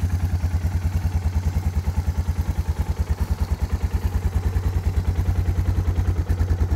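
Suzuki DR650's air/oil-cooled single-cylinder four-stroke engine idling steadily as it warms up after a cold start, an even beat of about a dozen exhaust pulses a second.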